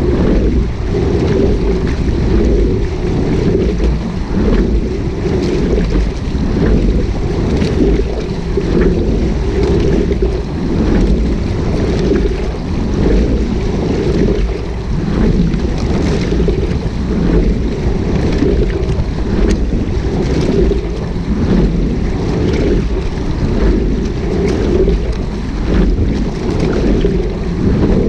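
A rowing shell moving through water, with wind rumbling on the deck-mounted microphone and water rushing along the hull. Occasional faint clicks come through.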